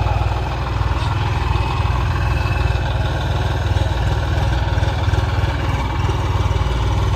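Tractor's diesel engine running steadily with a deep, even pulsing beat.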